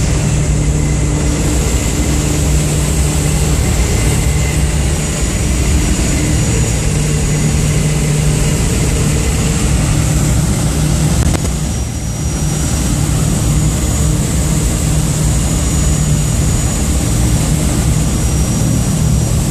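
Light propeller aircraft's engine and propeller droning steadily, heard from inside the cabin.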